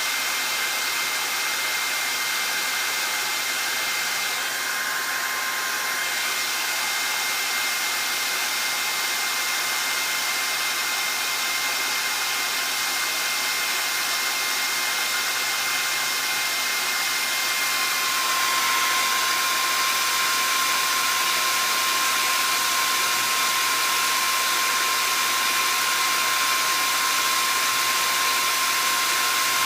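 Hair dryer blowing steadily: a continuous rush of air with a thin whine on top. About two-thirds of the way through, the whine drops to a lower pitch and the sound gets a little louder.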